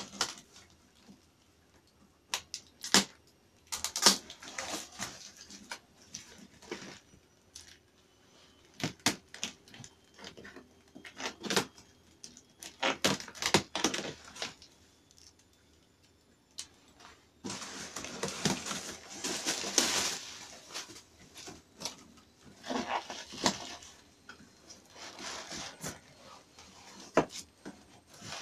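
Cardboard box being torn open by hand: scattered rips, crinkles and knocks of cardboard, with longer spells of tearing past the middle.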